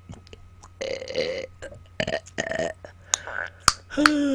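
A woman burping on command, three burps one after another, followed near the end by a short voiced sound from her.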